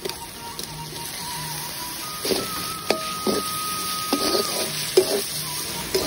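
Shrimp sizzling as they are stir-fried in spice paste in a wok, with a metal spatula scraping and knocking against the pan about five times in the second half, over background music.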